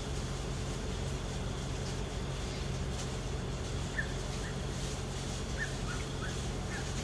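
Steady low hum of distant city traffic heard from a high-rise balcony, with a few faint short chirps from a small animal in the second half.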